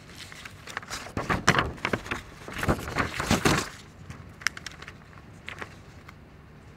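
Sheets of paper rustling and crackling close to a microphone as the pages of a printed speech are shuffled, loudest for about three seconds, then a few lighter rustles.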